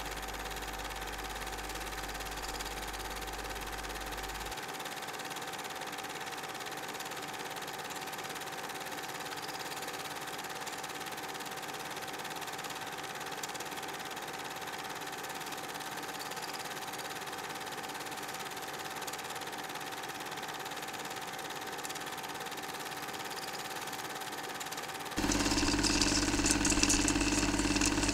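A steady, even hum with a faint held tone, machine-like and unchanging. About three seconds before the end it steps up suddenly to a louder, fuller steady noise.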